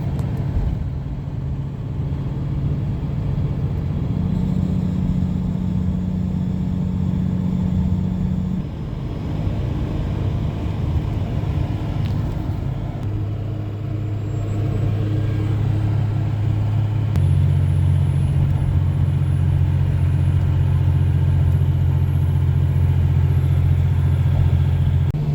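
Vehicle driving at road speed, heard from inside: a steady low engine drone over road noise, stepping to a new pitch a few times as the engine speed changes.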